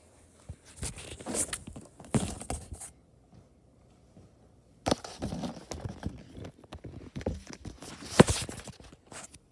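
Rustling and knocking of a phone being handled and covered, in irregular bursts with a quiet gap in the middle and a sharp click about eight seconds in.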